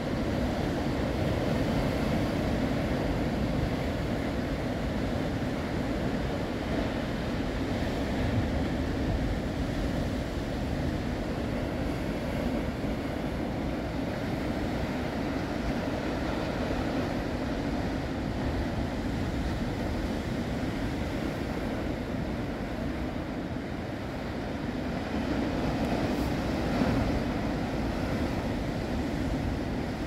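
Sea surf breaking over a rocky shore: a continuous rush of waves, swelling a little a few seconds before the end.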